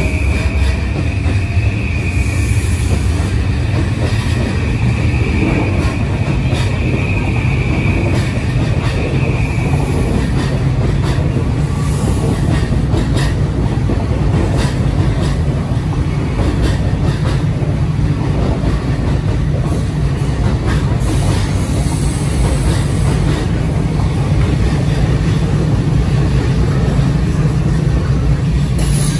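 E235 series 1000 electric commuter train departing and running past along the platform: a steady low rumble of wheels and running gear with repeated short clicks from the rail joints, and a high steady whine through about the first ten seconds.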